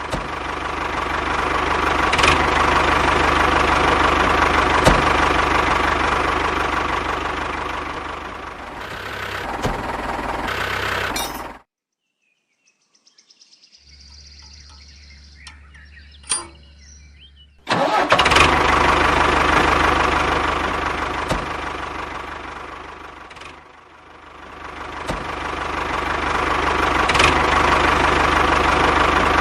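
A motor running with a steady low hum, swelling and fading in level. It cuts off abruptly about twelve seconds in. A faint hum and a single sharp click follow. It starts again suddenly about eighteen seconds in.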